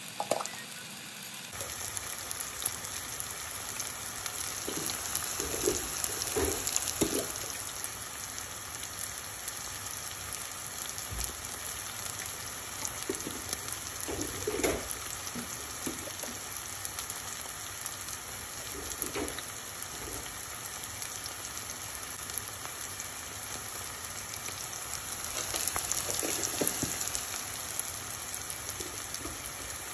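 Sliced onions, tomato and green chillies sizzling steadily in hot oil in a stainless steel pan, with a few light knocks or scrapes now and then.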